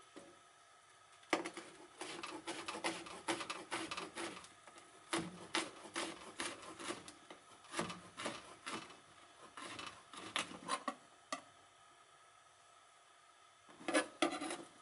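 Kitchen knife slicing yuzu peel into thin strips on a cutting board: a quick, uneven run of blade taps against the board for about ten seconds. After a pause comes a short burst of knife taps near the end.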